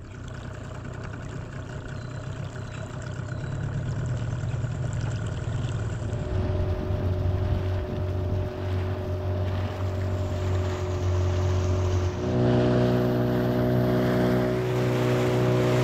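Small boat's outboard motor running steadily under way, with water noise along the hull. It grows louder and steps up in loudness and pitch about twelve seconds in.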